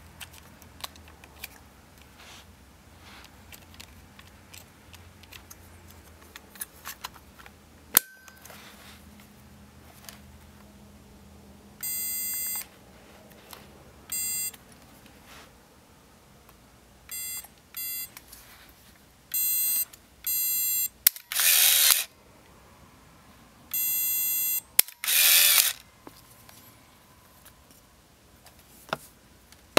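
Canon AF35ML compact film camera: a sharp click about eight seconds in, then a string of seven short electronic beeps and two brief, louder motor whirrs as the shutter button is pressed and the camera advances the freshly loaded film.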